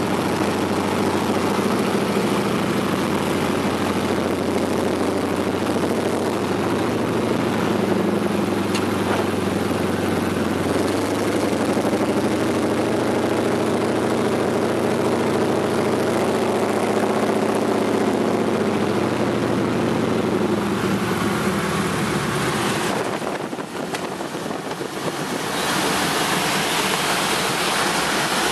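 Floatplane's piston engine and propeller droning loudly inside the cabin on the landing approach, its pitch shifting as power is worked. Near the end the drone drops away briefly, then a rushing of water and spray comes in as the floats touch down on the lake.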